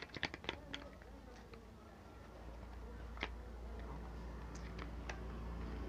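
Light clicks and taps of a small cardboard cream carton being handled and its end flap worked open: a quick cluster in the first second, then a few single clicks, over a low hum that comes up about halfway.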